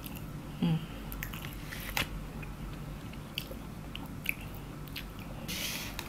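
Close-up eating sounds: a person chewing a mouthful of rice, with a few small sharp clicks here and there. A short hissing noise comes near the end as the next spoonful goes into the mouth.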